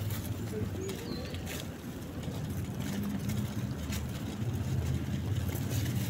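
Feral pigeons pecking grain among dry leaves: a few scattered sharp clicks and rustles over a low, steady rumble.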